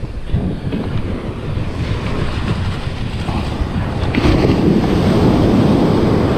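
Surf breaking and washing up the beach, with wind buffeting the microphone; the rushing grows louder about four seconds in.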